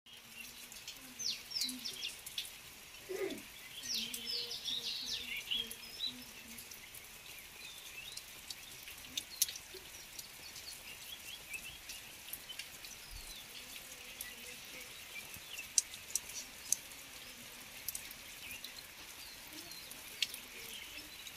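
Light rain pattering and dripping onto a waterlogged yard, with small birds chirping in the first few seconds.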